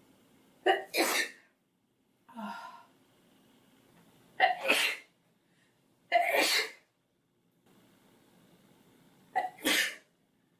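A girl sneezing four times in a row, a couple of seconds apart, each sneeze sharp and loud; the first and last come as quick doubles. A softer voiced sound falls between the first two. The sneezes are set off by pepper.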